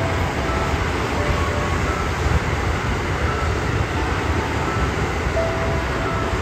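Electric commuter train running past, a steady rumble of wheels on the rails. Faint bell-like music notes sound over it.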